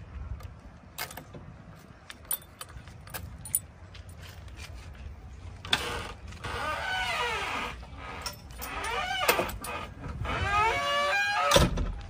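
Keys jangling and clicking at the cab door lock of a JCB 3DX backhoe loader, then the door squeaking in three drawn-out, wavering creaks as it is worked, and a loud clunk of the latch near the end.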